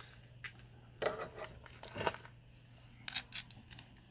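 A handful of light, separate metallic clicks and scrapes from locking pliers (vise grips) being fitted and clamped onto the liftgate glass strut, over a faint steady low hum.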